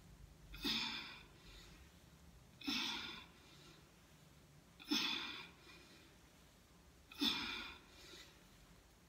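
A woman's forceful breaths out, one with each squat rep under a pair of 20-pound dumbbells. There are four of them, about two seconds apart, each starting suddenly and fading quickly.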